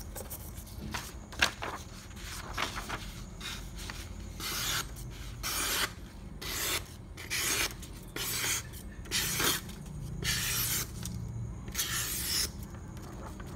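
Japanese kitchen knife blade slicing through sheets of paper in a sharpness test: a string of separate cuts, each a short scraping hiss lasting under a second, coming thicker and louder from about four seconds in.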